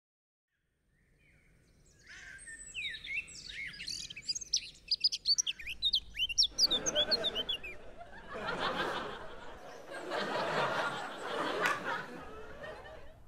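Songbirds chirping in quick, rapid calls, followed from about halfway by a sitcom laugh track: audience laughter in three long swells.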